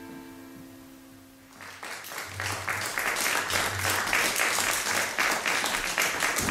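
Bandoneon holding a final chord that fades away. Audience applause breaks out a little under two seconds in and builds.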